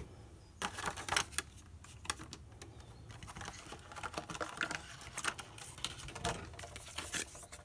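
Paper and plastic packaging of a headlight restoration kit being handled, with irregular rustling and light clicks as the contents are taken out.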